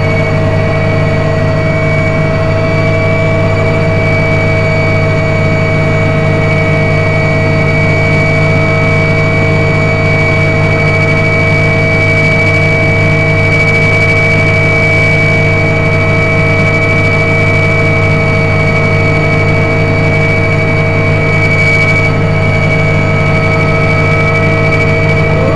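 Mi-2 helicopter in level flight, heard from inside the passenger cabin: its twin turboshaft engines and rotors running steadily, a loud constant drone under a steady high whine.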